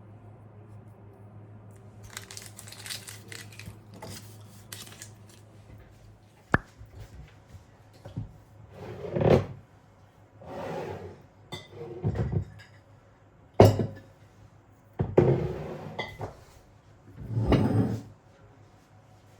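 Kitchen work sounds: bowls, utensils and cutlery being handled, with a series of clatters and scrapes and a couple of sharp clinks.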